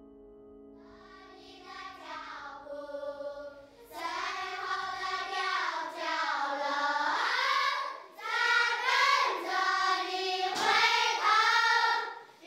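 A group of children singing a song together. The singing starts faint over a few held musical notes, then grows fuller about four seconds in, with short breaks between phrases.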